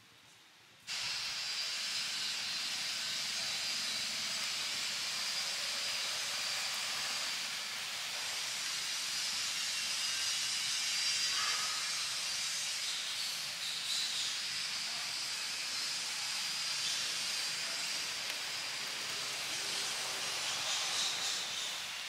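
A steady, high hiss that starts suddenly about a second in and holds without a break, with faint steady tones running through its upper part.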